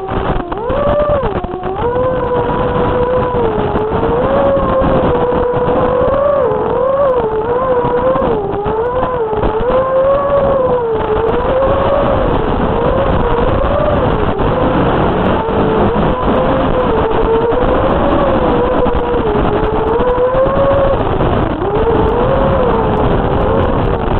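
FPV quadcopter's brushless motors and propellers whining, the pitch swinging up and down with the throttle over a steady rush of propeller noise.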